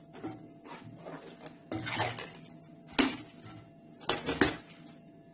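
Plastic cling film being pulled off its roll and pressed over a bowl of dough, rustling and crinkling. Sharp knocks and clinks sound about three seconds in and again twice near the end, as the roll and bowl are handled.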